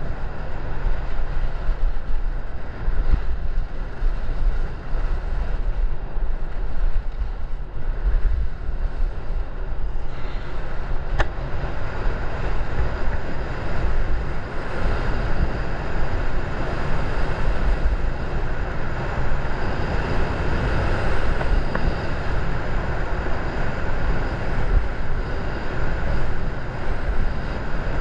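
Wind buffeting the microphone during a downhill ski run: a low, gusting rumble under a rushing hiss of skis sliding on snow, which grows louder about ten seconds in as the skier picks up speed.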